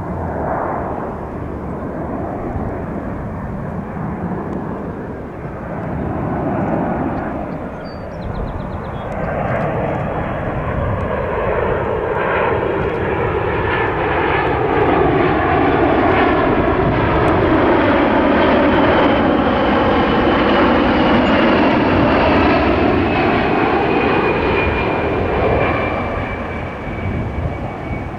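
Fixed-wing aircraft engine passing by: a steady engine sound that builds over several seconds, holds loudest for about ten seconds, then eases off near the end, with a high whine that slowly falls in pitch.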